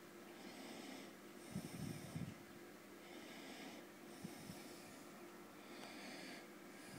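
Faint close breathing at the microphone, a soft hiss that alternates in and out about once a second, over a low steady hum, with a few soft low bumps.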